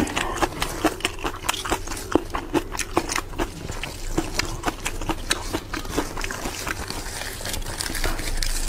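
Close-miked crisp, wet crackling of raw lettuce and green onion, several irregular clicks a second, over a low steady hum.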